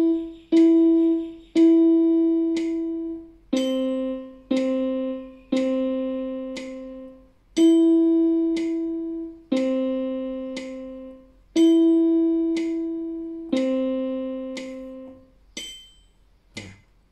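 Yamaha electronic keyboard playing a simple beginner melody of E and C notes at about one beat a second: E, held E, two short Cs and a held C, then held E, C, E and C in turn, each note fading away after it is struck. A couple of faint knocks follow near the end.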